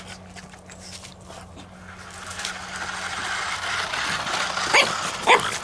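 Toy RC car's electric motor and gears whirring as it drives over grass, growing louder toward the middle. Near the end, two short barks from the pug puppy chasing it.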